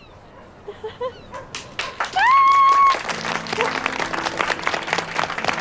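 A group of people cheering a welcome. About two seconds in there is one loud high whoop that rises and then holds for under a second, and then clapping and applause start up and keep going.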